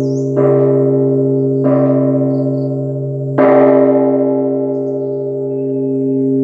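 Buddhist temple bell struck three times, a little over a second and then nearly two seconds apart. Each stroke rings on in a layered hum over a steady low tone, and the last stroke is the loudest.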